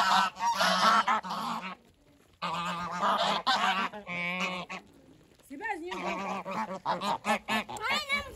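A flock of domestic geese honking loudly in many overlapping calls as they crowd in to scattered feed. The calls come in three bouts, with short lulls about 2 and 5 seconds in.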